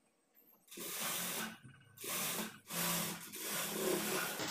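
Sewing machine stitching a folded-in seam in short runs: after a moment's quiet, three runs of about a second each.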